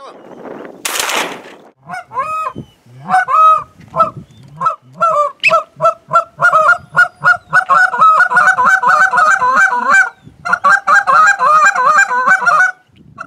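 Canada goose honks, each a two-note honk breaking from low to high, repeated loudly and speeding up into a fast run of clucks and honks from about eight seconds in. A short burst of noise comes about a second in, before the honking starts.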